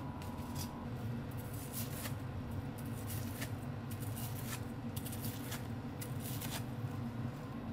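Kitchen knife cutting through the crisp panko breading of a fried pork cutlet (tonkatsu), in a series of short crunching crackles, over a steady low hum.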